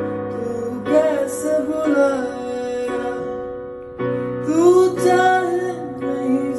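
A man sings two drawn-out, bending vocal phrases over chords held on an electronic keyboard. The chord changes about four seconds in.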